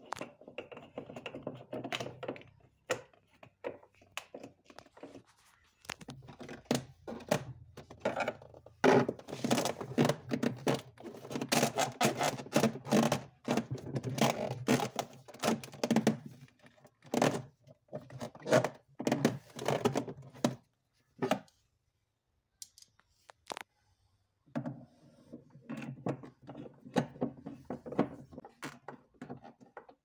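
A hand screwdriver drives screws into the plastic rear panel inside a frost-free refrigerator's freezer, with irregular clicks, knocks and plastic rattles as the panel is handled and screwed down. The sounds stop for a few seconds about two-thirds of the way through, then start again.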